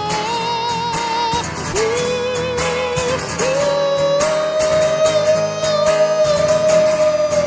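A singer holding long drawn-out sung notes over acoustic guitar in a live solo performance. The first note wavers with vibrato, then a long high note is held through the second half.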